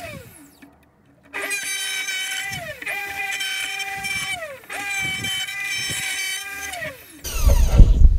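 Electric plunge router motor spinning up to a steady high whine and winding down again, three times over. Near the end there is a louder, deep rumbling noise.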